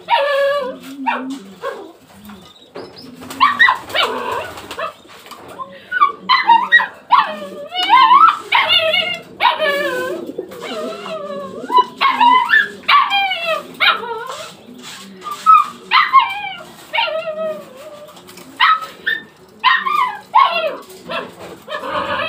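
An animal calling over and over in short, loud, pitched cries that bend up and down in pitch, about one or two a second. Pigeons coo faintly and low underneath.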